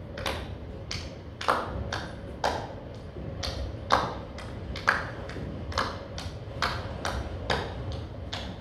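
A series of sharp, ringing taps, about two a second and uneven in strength, over a steady low hum.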